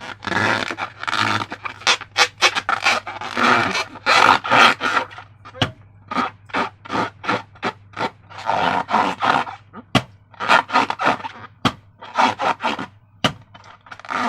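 Slime being squeezed and worked by hand: wet, sticky squelching in irregular bursts, some short smacks and some longer squishes.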